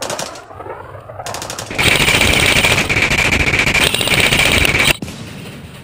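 Airsoft rifle firing one long full-auto burst: a rapid mechanical clatter over a steady high whine, starting about a second and a half in and cutting off sharply about five seconds in.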